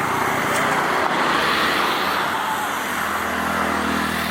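Steady rushing noise with a motor vehicle's engine running, its low hum clearer about three seconds in.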